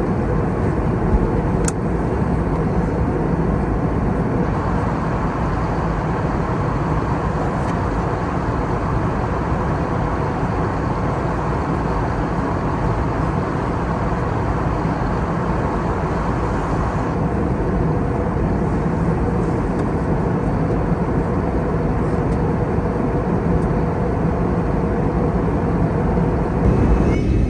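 Steady engine and cabin noise inside an Airbus A320neo airliner, a loud unbroken rumble.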